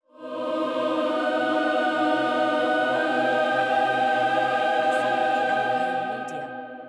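Horror sound logo: a held, choir-like chord of many steady tones that swells in quickly, holds, and fades out over the last second or so.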